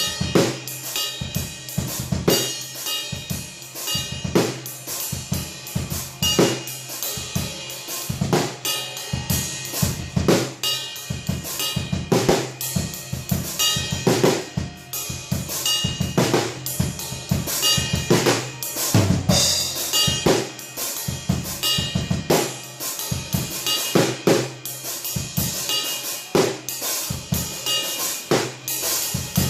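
Drum kit played in a fast, continuous groove: rapid snare and bass drum strokes with cymbals over them. The heads are damped with Moongel pads.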